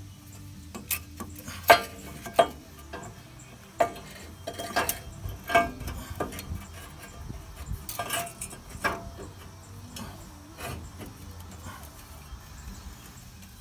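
Cast-iron exhaust manifold of a Ford 5.4 Triton V8 clanking and scraping against studs and surrounding metal as it is worked into place by hand: irregular metallic clinks and knocks, the sharpest about a second and a half in.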